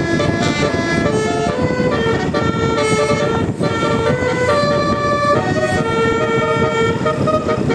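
Bus telolet horn, the multi-tone musical air horn of an Indonesian bus, playing a tune of held notes that step from one pitch to the next every half second or so, over steady background noise.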